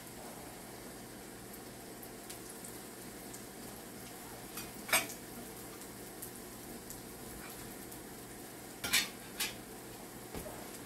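Banana-and-flour fritter balls frying in hot oil in a pan, a steady sizzle. Three sharp clinks of a metal spatula: one about five seconds in and two close together near the end.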